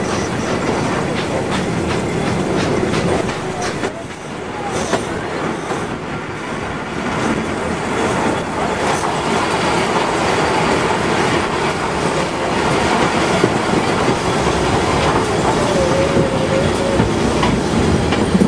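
Vintage passenger train running, heard from on board: a steady rumble of wheels on the track with a clickety-clack over the rail joints.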